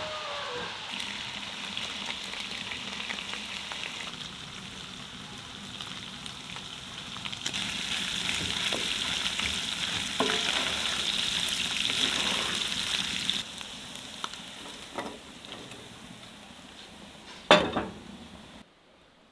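Chunks of meat frying in a hot pan, sizzling while a wooden spatula stirs them. The sizzle is loudest in the middle, then dies down, and a single sharp knock sounds near the end.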